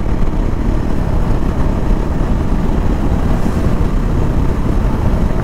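KTM Duke 390's single-cylinder engine running steadily at cruising speed, about 65 km/h, mixed with heavy wind rush on the microphone.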